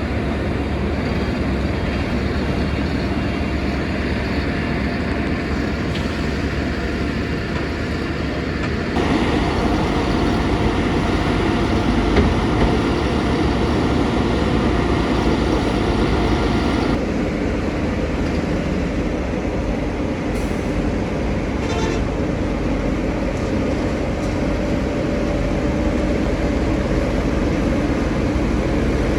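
Steady vehicle noise: engines and road noise of passing traffic, shifting abruptly in character about nine and seventeen seconds in.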